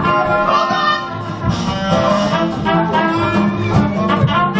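Instrumental music playing, with held notes over a steady bass line.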